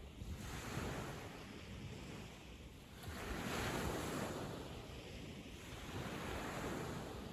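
Sea waves breaking and washing up a sandy beach, the surf rising and falling in swells, loudest in a surge starting about three seconds in.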